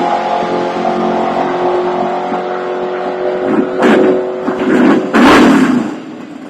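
Car engine running at a steady pitch, then loud revving surges about four and five seconds in that fade away.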